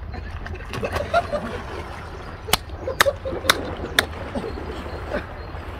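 Water splashing as a paddler tips out of a bark canoe into the pond, with four sharp slaps of water about half a second apart near the middle. A voice calls out about a second in.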